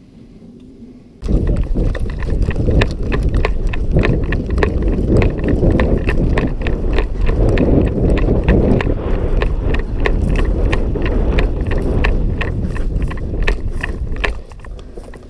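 Running footsteps of an airsoft player over rubble and dry grass: a quick, steady beat of footfalls with gear rattling, over a heavy low rumble. It starts suddenly about a second in and eases off near the end.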